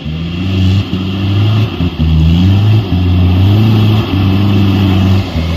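Toyota Land Cruiser 4x4's engine revving hard under load as it climbs a deep, rutted mud track. The engine note rises and falls with the throttle and drops out briefly several times.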